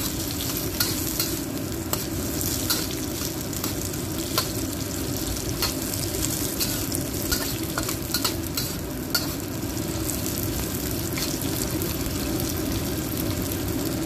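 Smashed ginger, garlic and lemongrass sizzling in hot oil in a wok, frying until fragrant, while a metal spatula stirs them and scrapes and taps against the wok at irregular moments. The spatula clicks thin out near the end.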